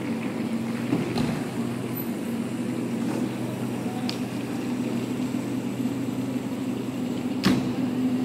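Small electric taxis driving across a rain-wet street: tyres swishing on wet pavement over a steady electric hum, with a sharp knock about seven and a half seconds in.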